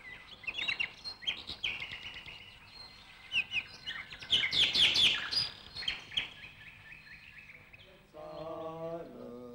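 Small birds chirping and twittering in quick, short notes, busiest around the middle. Near the end a man's voice comes in on a held sung note.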